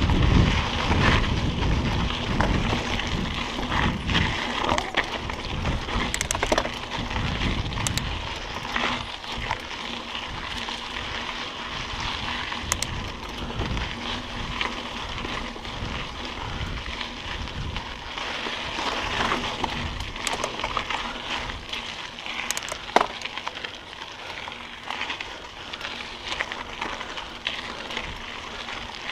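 Mountain bike rolling along a dirt singletrack: tyre noise on the dirt with the bike's parts rattling and an occasional sharp click or knock. A heavy low rumble in the first several seconds eases off after that.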